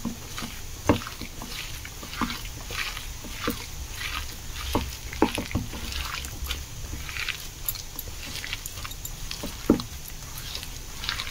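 Hand kneading and squishing thick bara (vada) batter with chopped onion, green chilli and ginger in a steel bowl: irregular wet squelching and scraping, with a few short knocks against the bowl.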